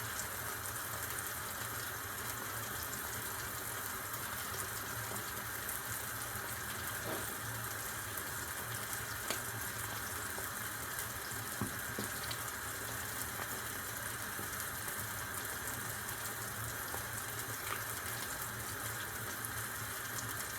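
Steady sizzling of menemen (eggs, tomatoes and cheese) cooking in a frying pan, with a few faint clicks.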